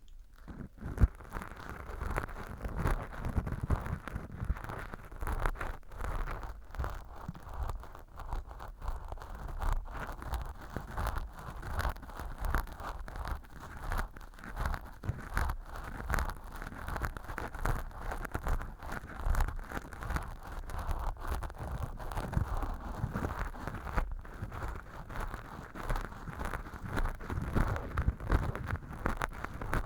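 Earpick scraping dry, flaky fake earwax inside a model ear canal lined with fluffy velcro: a continuous crackling, scratchy rustle full of small clicks.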